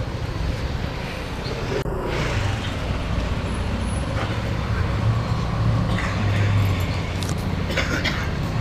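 Street traffic: a low engine rumble from passing vehicles under a steady background of road noise, swelling and loudest a few seconds before the end.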